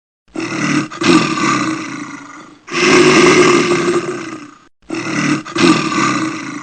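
A large animal roaring three times in a row, each roar about two seconds long, starting loud and fading out.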